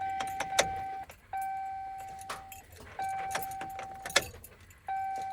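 2005 Chevrolet Silverado's warning chime dinging about every two seconds, each ding fading out, while the ignition keys jangle and a few sharp clicks sound. The engine does not crank, which the owner blames on a bad or frozen starter.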